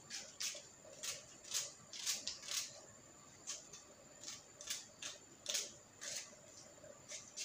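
Kitchen knife cutting through a peeled onion held in the hand, dicing it finely: a crisp cut about twice a second at uneven spacing.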